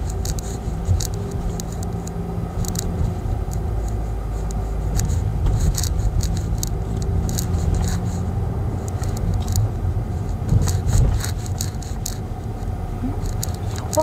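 Kia Seltos driving, heard from inside the cabin: a steady low rumble of engine and road noise with scattered light clicks and rattles, thickest around the middle and again about three-quarters through.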